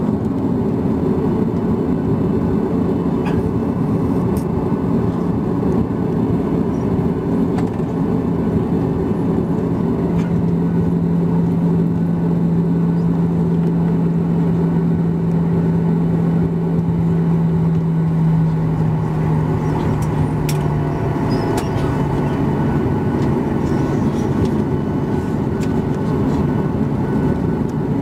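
Cabin noise of a Boeing 737-800 taxiing, its CFM56 engines at idle: a steady hum with a held low tone. A few faint clicks come about two-thirds of the way in.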